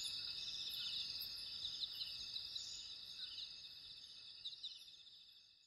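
Crickets chirping in a steady, high-pitched trill that fades out gradually toward the end.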